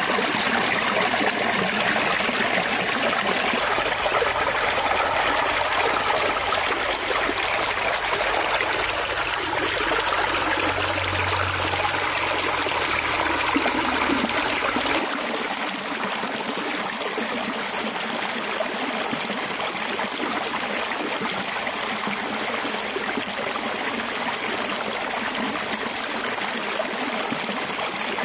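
Stream water rushing over rocks and pouring into a small homemade vortex turbine basin, a steady splashing rush. About halfway it drops slightly quieter and loses its low rumble.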